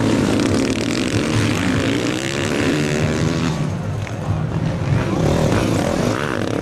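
Motocross bike engines revving hard as riders pass close by, the pitch rising and falling as they go past.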